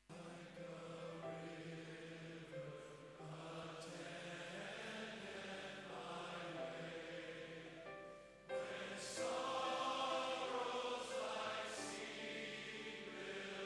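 A choir singing a slow hymn-like chant; the singing dips briefly about eight seconds in, then comes back louder.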